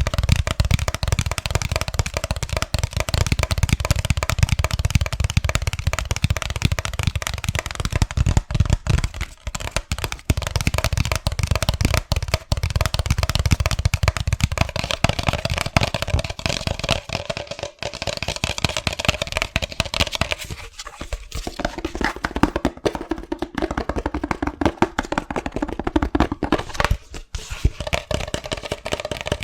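Rapid, aggressive fingertip tapping on hard objects: a dense, unbroken stream of sharp taps, with a faint ringing note from the object being struck.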